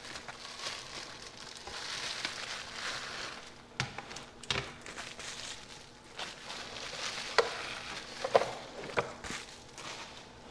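Bubble wrap and plastic packaging crinkling and rustling as a light bar is unwrapped by hand, with a handful of sharp clicks and taps.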